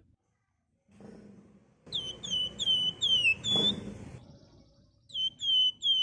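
Javan fulvetta (wergan Jawa) songbirds singing: a quick run of about five clear, down-slurred whistled notes starting about two seconds in, and another run of the same notes near the end.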